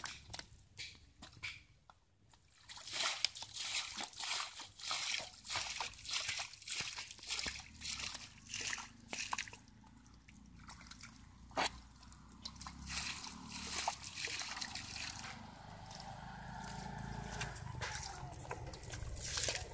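Muddy water sloshing and splashing as a child scoops and throws it out of a shallow pool by hand and with a steel bowl, bailing it down to get at the fish. Quick repeated splashes about two a second, turning into steadier splashing in the second half.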